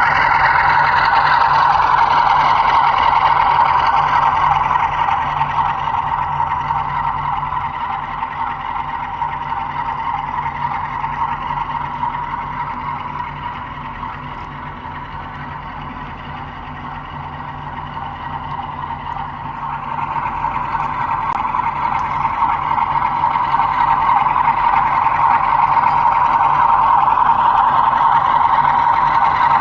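Model goods train running on its layout track: a steady rolling rush of wheels and motor. It fades down around the middle and builds back up louder near the end.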